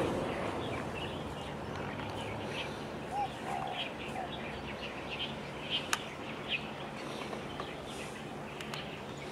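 Small birds chirping in short, repeated notes, over a steady low background noise, with a single sharp click a little past the middle.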